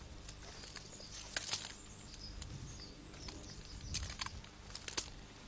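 Footsteps pushing through dry, overgrown grass and brambles, with stems rustling and twigs cracking underfoot; sharp snaps stand out about one and a half seconds in, around four seconds and again near five seconds.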